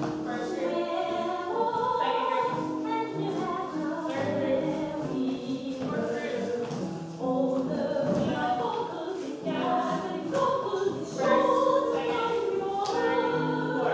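A group of voices singing a song together, holding notes that shift in pitch.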